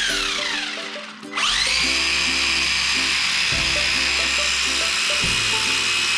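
WLToys A979 RC truck's electric motor and four-wheel-drive gearing whining with the wheels spinning free in the air. The whine winds down, then about a second in rises sharply to a steady high whine held at the transmitter's single full-throttle speed for about five seconds. Background music plays underneath.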